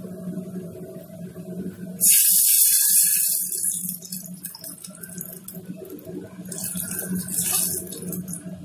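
Water poured into a steel pot of onions, chillies and curry leaves frying in hot oil: a sudden loud hiss about two seconds in that dies down over a second or two, and a second, weaker hiss a few seconds later as more water goes in. A steady low hum runs underneath.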